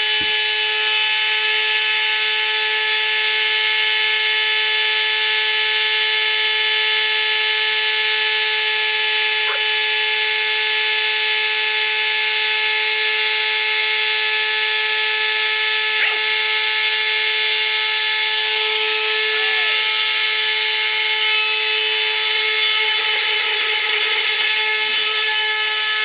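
Upright vacuum cleaner running with a loud, steady high-pitched whine made of several tones held together, with no rise or fall. The machine is faulty: it had been making noise and then a much louder noise, and running this way it is deafening.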